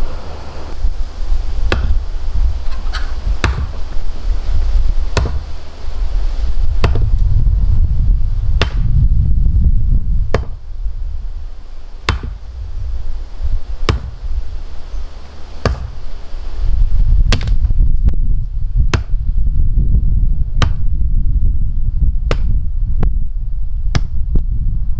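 Heavy strikes at a steady, even pace, about one every second and a half to two seconds, as a hand tool pounds or chops. Wind rumbles on the microphone, heavier in the last third.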